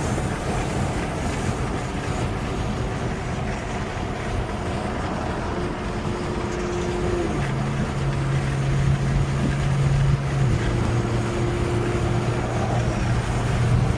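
Car driving along after a high-speed run: a steady low engine hum over road and wind noise. The engine note steps down about seven seconds in and again about ten and a half seconds in.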